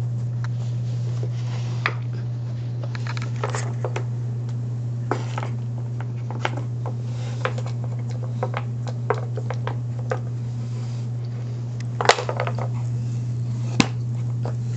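Irregular light clicks and clatters of a plastic dog puzzle toy's pieces being nudged and slid by a dog, over a steady low hum. The sharpest knock comes about twelve seconds in.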